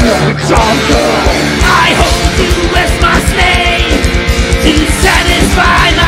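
Heavy metal band playing live: distorted electric guitars, bass and drums. About two seconds in, the drumming turns to a fast, even run of kick-drum beats.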